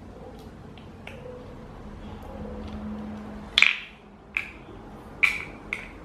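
Several sharp clicks and clacks of hard parts being handled while a fan-blade screw is refitted, four of them, the loudest about three and a half seconds in.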